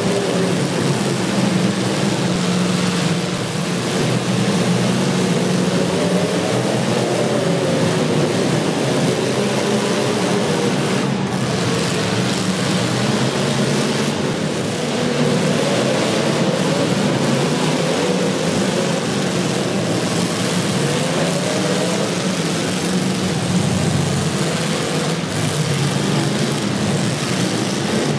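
Demolition derby cars' engines running loud and being revved hard, their pitch rising and falling again and again over a dense, continuous noise of several engines at once.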